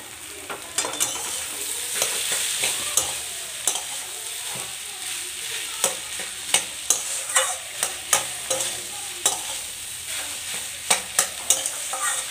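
A long metal spatula stirring and scraping a potato, soya chunk and tomato curry in a metal kadai, with irregular sharp clinks against the pan over a steady sizzle of frying.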